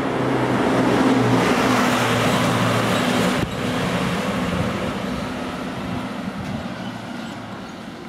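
A motor vehicle passing along the street: a low engine hum with tyre and road noise that swells to a peak, breaks off sharply about three and a half seconds in, then slowly fades away.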